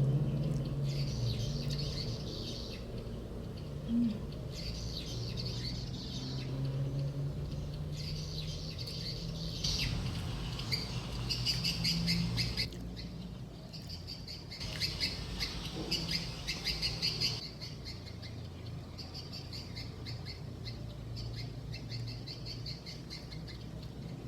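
Close-up chewing of baked brownies: patches of crackly mouth clicks and smacking come and go every few seconds. A low steady hum runs underneath.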